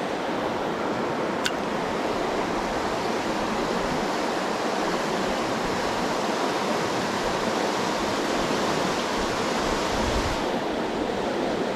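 Steady rushing of a mountain trout river, its water running over rocks, with one sharp click about a second and a half in.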